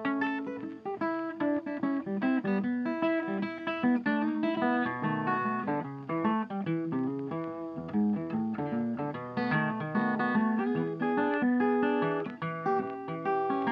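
Background music: a plucked acoustic guitar playing a continuous melody of quick notes.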